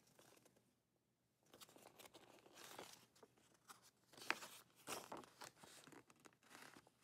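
Glossy paper guide booklet being handled and unfolded: quiet at first, then paper crinkling and rustling with a few sharp crackles.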